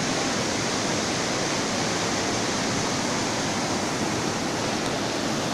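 Whitewater rapids of a fast river rushing over boulders: a steady, unbroken rush of water.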